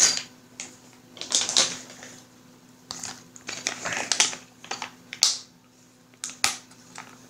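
Plastic miniatures and their packaging being handled: irregular clicks, taps and crinkly rustles.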